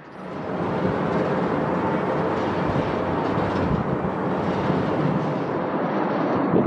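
Jet airliner engines at high thrust during a takeoff roll, heard from a distance as a loud, steady rumbling noise that swells up just after the start.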